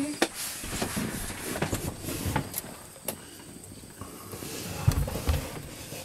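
Scattered clicks and knocks from handling and movement, then low thumps about five seconds in as the RV refrigerator door is opened.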